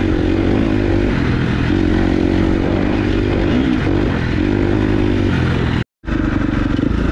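Off-road motorcycle engine running while riding, its pitch wavering up and down with the throttle. Just before the end the sound drops out for a moment, then the engine carries on with a rougher, choppier sound.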